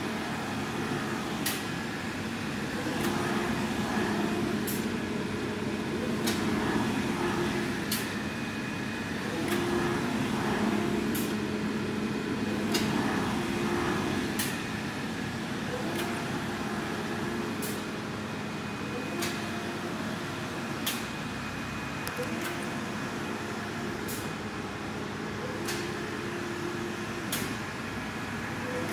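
Flatbed UV printer's print carriage shuttling back and forth over the board with a steady mechanical hum. Its tones switch on and off with each pass, and a sharp click comes about every one and a half to two seconds.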